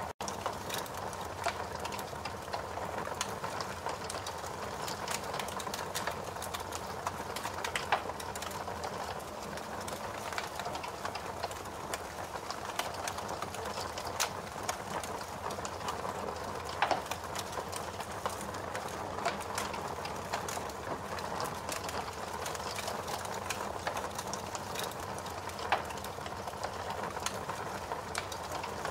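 Fire crackling: a steady rushing noise with scattered sharp crackles throughout and a few louder pops, about a third of the way in, just past halfway and near the end.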